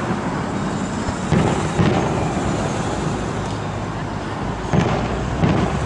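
Aerial firework shells bursting at a distance: four sharp bangs, a pair about a second and a half in and another pair near the end, over a steady low background rumble.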